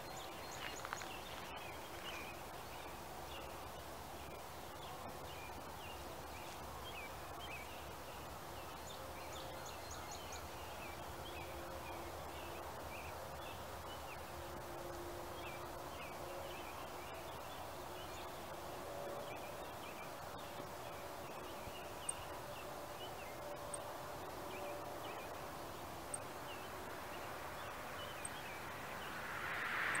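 Small birds chirping over and over in quick, short high notes at dawn, over a steady low background hum. A louder rushing noise swells in near the end.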